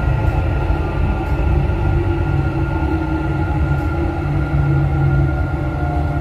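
Driverless Dubai Metro train running through an underground tunnel and into a station, heard from inside the front car: a steady low rumble of wheels on rail with a faint steady electric whine above it.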